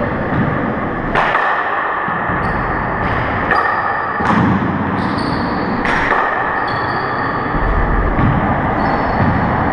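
Handball rally in a four-wall court: the rubber handball smacking off hands and walls in about five sharp, echoing cracks spread over the span, with short high squeaks of sneakers on the hardwood floor in between.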